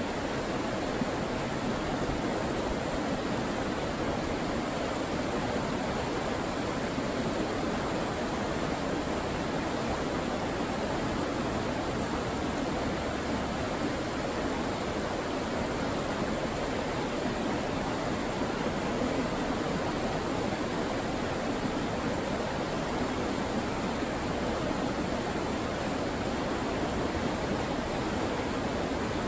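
Steady rushing of river rapids, whitewater running fast over rocks.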